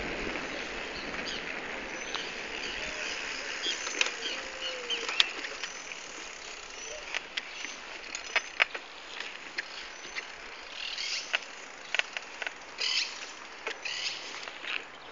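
Bicycle riding over a rough surface: a steady rush of wind and tyre noise, with scattered sharp clicks and rattles that come thicker in the second half. Birds chirping.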